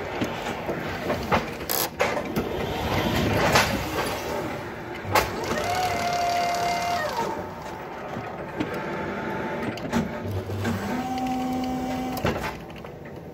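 BT electric reach truck's motors whining as the control lever is worked: a whine ramps up in pitch, holds and falls away about six seconds in, and a second one holds briefly near the end, over a steady mechanical hum with scattered clicks and knocks.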